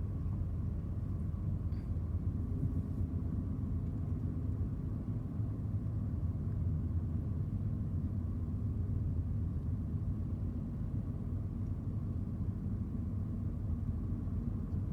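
Steady low rumble of road and engine noise inside a Ford car's cabin while it is driving.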